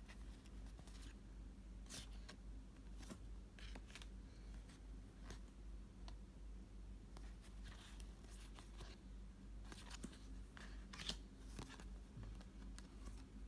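Faint, scattered clicks and rustles of trading cards and their packaging being handled, over a steady low hum.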